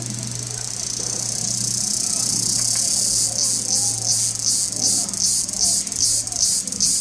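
Insects buzzing loudly in a high, even drone that starts to pulse about a third of the way in, at roughly two pulses a second, over a steady low hum.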